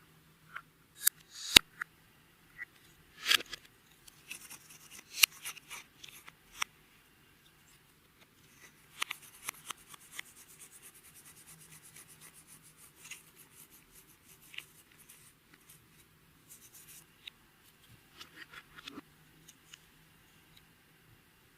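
Clear slime being worked by hand as makeup and glitter are mixed in: sharp clicks and snaps in the first few seconds, then a long run of fast crackling ticks, with a few more clicks near the end.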